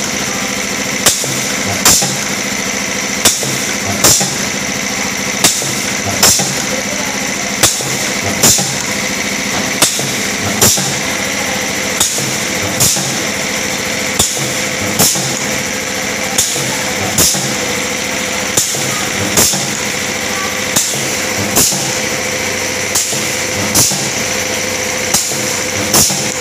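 Automatic MCB wire welding and cutting machine running through its cycle: a steady machine hum broken by sharp clacks that come in pairs, one pair about every two seconds.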